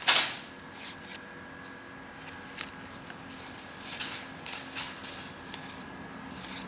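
Trading cards being handled and slid past one another: a sharp swish right at the start, then soft scattered clicks and rustles as the cards are flipped through.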